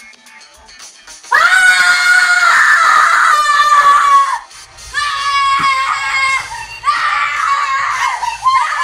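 A girl screaming in a tantrum of rage: three long, high-pitched screams, the first starting about a second in and held for about three seconds. Low background music comes in underneath about halfway through.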